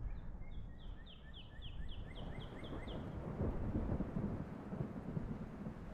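A songbird sings a rapid series of about a dozen short, high, down-slurred whistled notes, which stops about three seconds in. Under it runs a low rumbling noise that grows louder in the second half.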